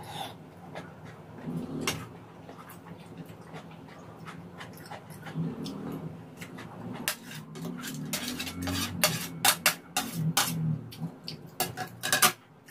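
A metal spoon clinking and scraping against a nonstick grill pan as food is scooped up, with chewing in between. The clicks come thick and fast in the second half, and the loudest comes just before the end.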